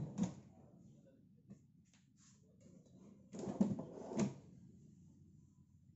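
Plywood drawer box being pushed onto steel ball-bearing drawer slides (Taco BBS 005 soft-close, full-extension, 55 cm), with knocks and metal clicks right at the start and again, louder, about three and a half to four seconds in. Faint scraping comes in between.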